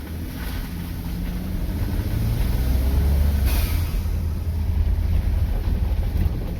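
Engine and road rumble of a 2015 Ford F-150 with the 2.7 EcoBoost twin-turbo V6, driving along a rough dirt trail. The low rumble builds over the first few seconds, then holds steady.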